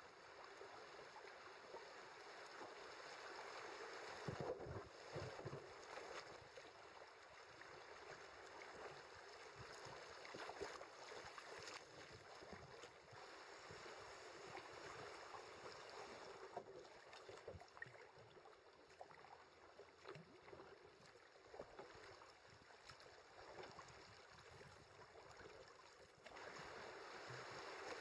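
River water rushing and splashing around a kayak's hull as it runs down a fast stretch of river, with a steady rush that gets louder near the end as the bow meets choppy white water.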